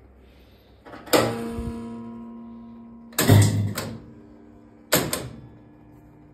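Seeburg 148 jukebox giving three loud bangs, about two seconds apart, each followed by a ringing tone that dies away over a second or two. This happens during a test run after repair of its frequency converter and is the sign that something has burned out again.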